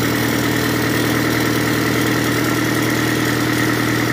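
Vehicle engine idling steadily, an even drone with no change in speed.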